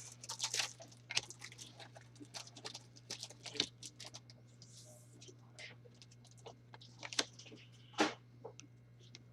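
Trading cards being handled and sorted by hand: scattered light clicks and rustles, with a sharper snap about eight seconds in, over a steady low electrical hum.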